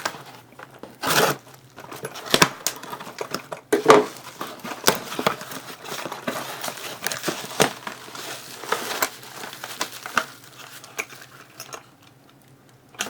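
Box of padlocks being unpacked: packaging rustling and crinkling, with irregular metallic clinks and knocks of the padlocks being handled.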